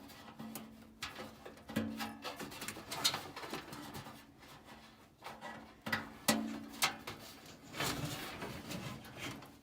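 Scattered clicks and knocks from hands working on sheet-metal furnace parts, with three short, steady low hums about half a second each.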